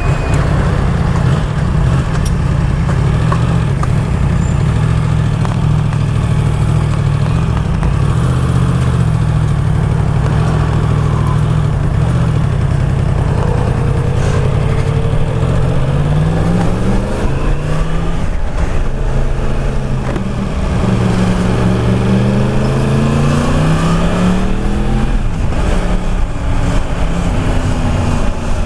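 Yamaha MT-10's crossplane inline-four engine running through an Akrapovic exhaust while riding at street speed, with wind rush over it. In the second half the engine note rises and falls several times as the bike accelerates and eases off.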